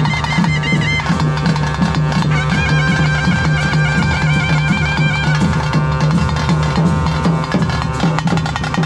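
Traditional temple procession music: drums beaten with sticks in a fast steady rhythm, with a wind instrument playing a melody over a sustained drone.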